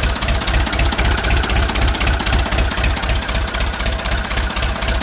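Ford 6600 tractor's three-cylinder diesel engine idling steadily just after starting, with an even, pulsing low rumble.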